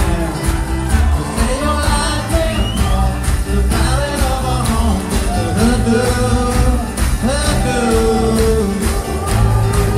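Live rock band playing an instrumental break, with a harmonica lead bending over drums, bass and guitars.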